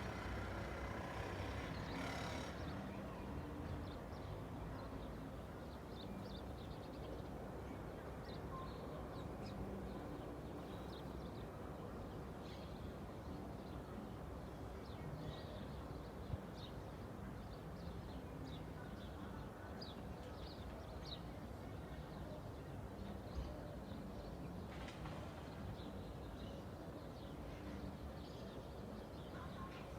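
Small birds chirping in short, scattered calls over a steady low hum of distant traffic, with a car passing in the first couple of seconds.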